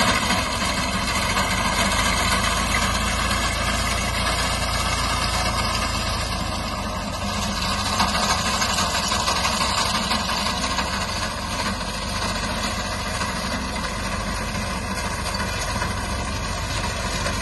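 Tractor engine running steadily as it drives a front-mounted reaper cutting standing wheat.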